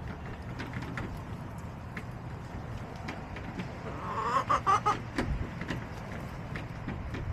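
A backyard hen gives a short run of clucking calls about four seconds in, over a steady low rumble and scattered small ticks.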